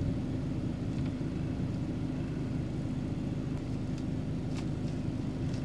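Steady low rumble of a motor vehicle engine running, with a constant hum and a few faint ticks.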